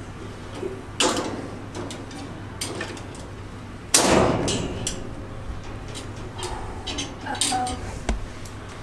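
Metal wire cage door and its latch being handled, giving sharp clicks and rattles, with a louder clang about four seconds in and another about a second in.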